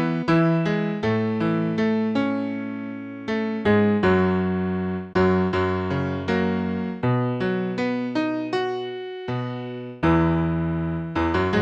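Piano playing a slow, hymn-like tune in full chords over a prominent low bass line, each chord struck and left to ring and fade. The notes come about two or three a second at first, then longer held chords; there is a brief lull just before ten seconds in, and then a new phrase begins.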